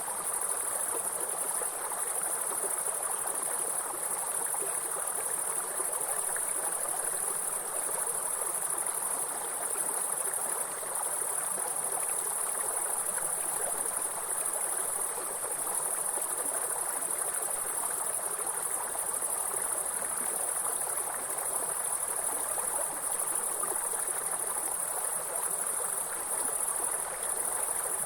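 Insects trilling steadily at a very high pitch over the even rush of a flowing stream.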